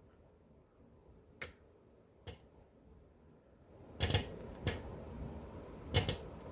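Yamaha Clavinova CLP-230 digital piano giving off sharp, spark-like ticks at irregular intervals. There are two faint ones, then louder, partly doubled ones about four, four and a half and six seconds in. This tick occurs when the switch mode is on, and its cause is unknown.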